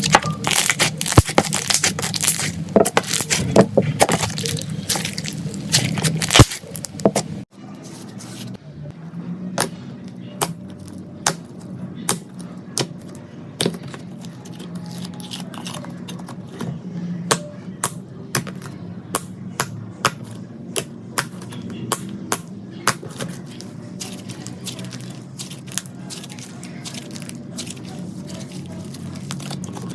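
Slime being squeezed and poked by hand, giving a dense run of sticky clicks and pops. After a cut about seven seconds in, the pops come sparser and sharper over a steady low hum.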